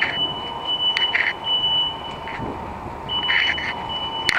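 Smoke alarm sounding a steady high-pitched tone that breaks off about two seconds in and resumes about a second later; dust getting into the detectors sets them off. Short bursts of scuffing noise come and go alongside.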